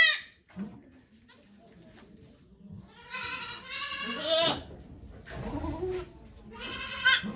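Goat bleating: a call trailing off right at the start, a long quavering bleat about three seconds in, and another shorter bleat near the end.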